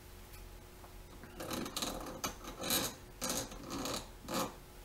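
A Stihl chainsaw guide bar and chain being handled and slid on a wooden workbench: about seven short scraping, rasping strokes, starting about a second and a half in.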